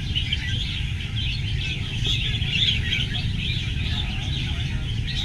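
A chorus of many red-whiskered bulbuls singing and chirping at once: dense, overlapping short phrases with no break. A steady low rumble runs underneath.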